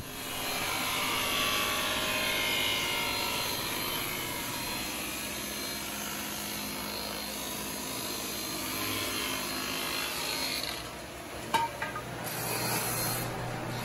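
Sliding table saw running and ripping a hard maple leg blank to final width, the blade cutting steadily through the wood over the motor's hum. A couple of short knocks sound near the end.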